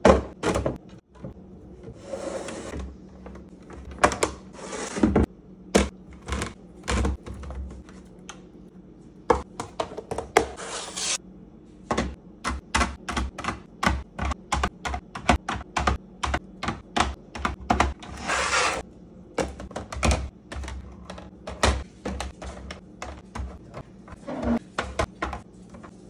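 Clear plastic storage bins handled on a wooden counter, and eggs set one by one into plastic egg trays, each landing with a light click of shell on plastic. The clicks come in a long series, quickest in the middle at about three or four a second, with a few short bouts of plastic scraping and sliding between them.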